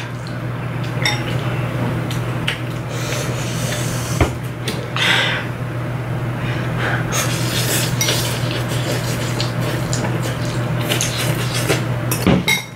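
Metal forks clinking and scraping against ceramic bowls as two people eat noodles, with many short clicks over a low steady hum.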